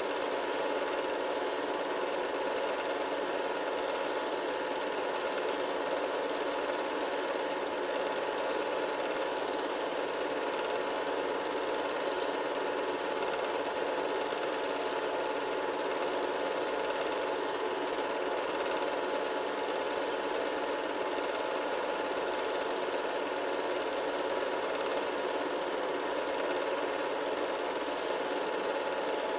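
Film projector running steadily, its motor and mechanism giving an even, unchanging whir with a few fixed tones.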